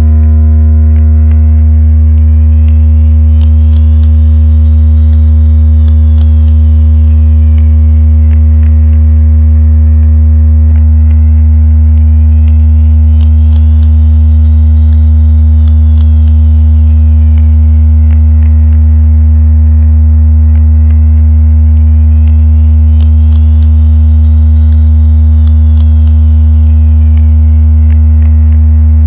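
Electronically generated fish-attracting tone track: a loud, steady low hum layered with several steady higher tones. A high tone glides up and back down about every ten seconds, with faint scattered ticks.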